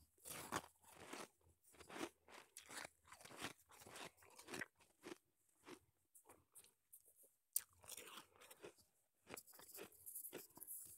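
Crunching and chewing of soft shaved ice in the mouth, recorded close up on an earbud microphone held near the lips: a quick, irregular run of short crunches, with a single sharp click about seven and a half seconds in.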